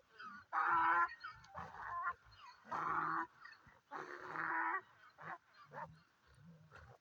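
Wild burros braying in the dark, a string of harsh, honking calls one after another, with fainter calls between them. It is the burros' mating season, and the jacks are chasing each other.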